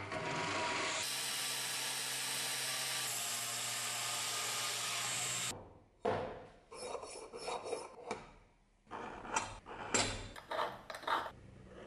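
A small belt grinder runs steadily for about five and a half seconds and then cuts off suddenly. After a short pause comes a run of short, irregular scraping strokes: a scriber scratching lines into brass sheet along a steel ruler.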